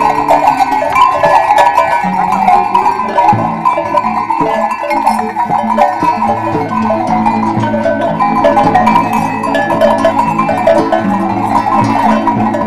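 Many goat bells clanking irregularly on a herd of goats moving together, over background music with low held notes that change every second or so.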